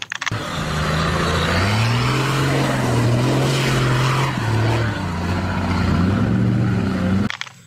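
An off-road SUV's engine revving under load as it climbs through mud, with a haze of tyre and mud noise. The engine note rises about a second and a half in, holds, dips, then rises again before cutting off suddenly near the end.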